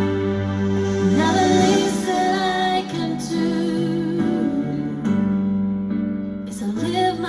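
Song with a woman singing over sustained instrumental chords.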